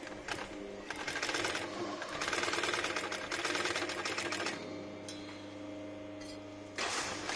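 Golden Wheel CS-243 heavy-duty single-needle sewing machine stitching leather: a fast, even rattle of stitches for about four seconds, a pause with a steady hum, then it starts stitching again near the end.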